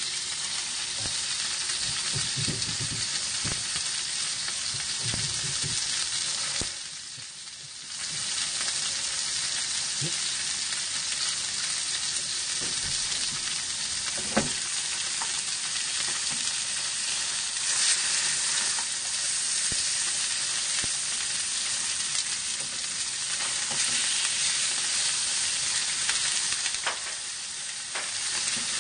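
Salmon fillets sizzling in a hot frying pan, a steady crackling hiss that briefly drops away about seven seconds in.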